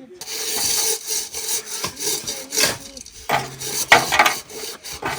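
Repeated rough scraping strokes, starting suddenly just after the start; a steady low hum joins about three seconds in.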